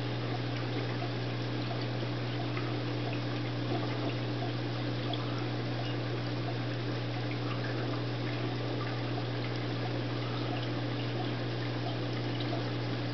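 Reef aquarium's water circulation and equipment running: a steady low hum under continuous trickling and dripping water, with small scattered splashes and bubble pops.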